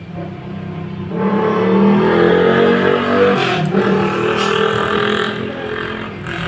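A motor vehicle engine revving as it passes by. It grows louder about a second in, with a drop in pitch partway through, then fades.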